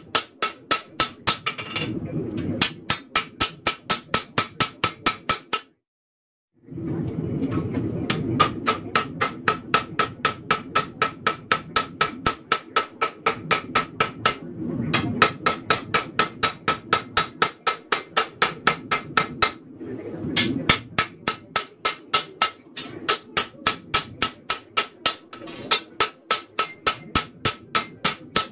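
Hand hammer striking a hot 1084 high-carbon steel knife blade on an anvil, about four blows a second, with the anvil ringing a clear note at each blow. The hammering breaks off completely for about a second once, then carries on at the same pace.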